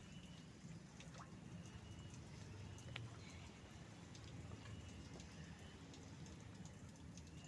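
Near silence: faint outdoor background with scattered light ticks and a short, faint high chirp recurring about every second and a half.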